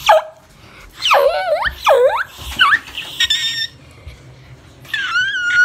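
A dog whining and whimpering in high, sliding cries, two swooping ones about a second in, then a short steady squeal and a steady high whine starting near the end.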